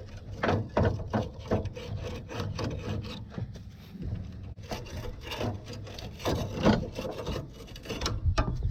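A rubber drive belt being worked off a rusted pulley on a Murray riding lawn mower: irregular rubbing and scraping with scattered knocks, as the belt rusted to the pulley comes free.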